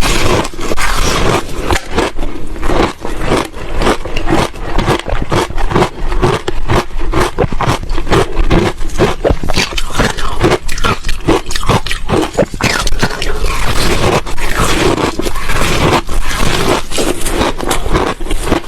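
Ice cubes being bitten and chewed close to the microphone: a loud, dense run of crunching and cracking.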